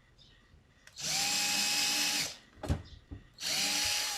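Small electric drill running in two short bursts of about a second each as it bores a hole into a plastic cable clip, with a steady whine; a short knock falls between the bursts.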